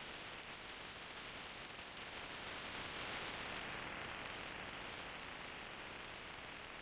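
Steady rushing hiss of wind and road noise on the microphone of a moving motorcycle, with no clear engine note.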